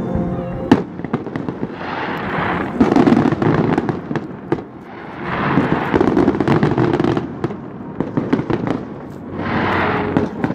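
Aerial fireworks going off: a sharp bang about a second in, then three swells of dense popping and crackling from bursting shells.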